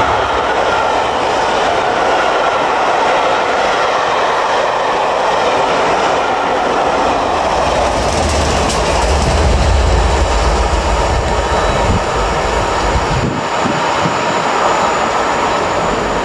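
A rake of Pullman passenger coaches running past close by, wheels clattering and rumbling on the rails. About eight seconds in, the deep engine note of the trailing class 67 diesel locomotive comes through as it passes. After a break near the end, another class 67-hauled train is heard approaching.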